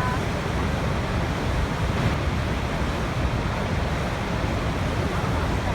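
Waterfall rushing in a steady, unbroken roar of falling water, heaviest in the low rumble.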